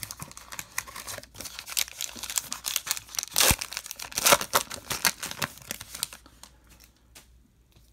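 Plastic wrapper of a baseball card pack being torn open and crinkled by hand, a dense crackle that is loudest about midway and dies down near the end.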